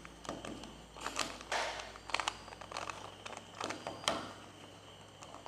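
A plastic Rubik's cube having its layers turned by hand: a series of irregular short clicks and rasping scrapes as each face is twisted through a move sequence.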